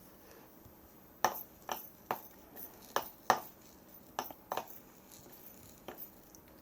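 About a dozen sharp clinks of small hard objects knocking against a dish, spaced irregularly, each ringing briefly.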